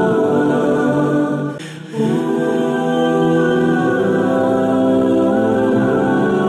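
Background vocal music: layered voices holding long notes. It dips briefly about a second and a half in, then resumes.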